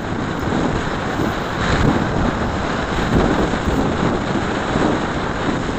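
Wind rushing over the microphone of a moving motorcycle, over the low rumble of the bike and road: a steady, unbroken noise.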